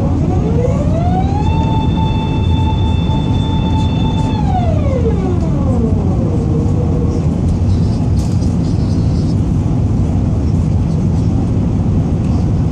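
Steady loud engine and airflow rumble in the cabin of an Airbus A380 in its climb. Over it a hydraulic whine rises in pitch in about a second, holds steady for about three seconds, then winds down and fades: typical of the flap drive moving the high-lift surfaces as they retract after takeoff.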